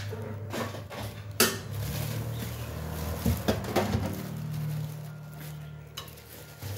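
Kitchen handling noise: a plastic bag rustling and a few sharp knocks against a nonstick frying pan as fresh herbs are taken from the bag and put into the dry pan. The loudest knock comes about a second and a half in, and a steady low hum runs underneath.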